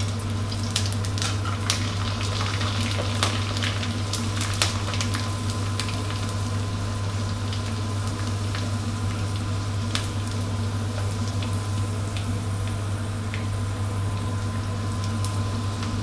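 Dried fish deep-frying in hot oil in a wok, with the oil bubbling and sizzling and scattered sharp crackles and pops, which come more often in the first few seconds. A steady low hum runs underneath.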